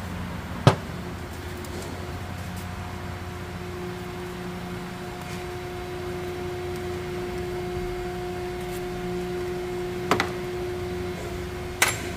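A steady mechanical hum with a held mid-pitched tone, broken by a sharp knock about a second in and two more knocks near the end.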